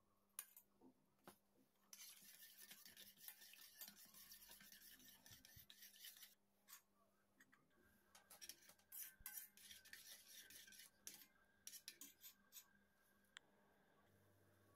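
Faint scraping and clinking of a metal fork stirring tomato sauce in a small stainless steel saucepan, in two stretches of rubbing noise broken by scattered sharp clicks.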